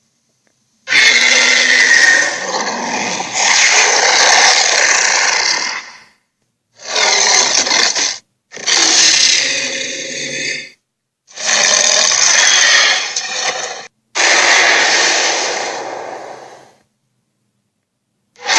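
A string of giant-creature roar and growl sound effects: five separate harsh, noisy calls, the first about five seconds long and the rest one and a half to three seconds, split by short silences.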